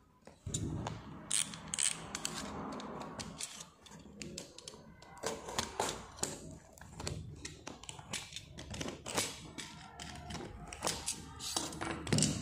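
Box-cutter knife cutting and scraping along the packing tape of a cardboard parcel, with irregular clicks, taps and rustles as the box is handled.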